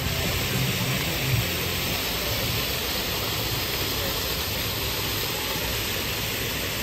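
A steady, even rushing noise with no distinct knocks or tones.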